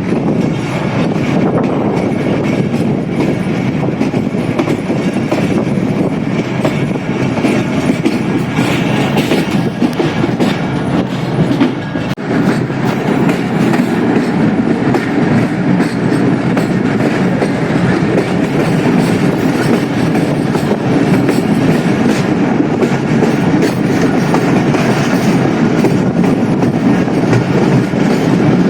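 Moving passenger train, heard from on board: the steady running noise of the wheels on the rails, with a brief dip about twelve seconds in.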